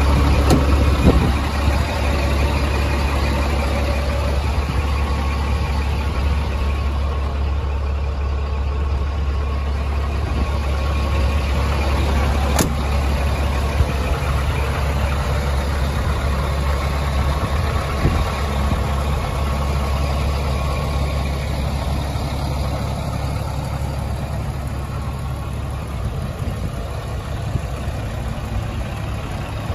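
Scania P380 truck's diesel engine idling steadily, a little fainter near the end, with one sharp click about halfway through.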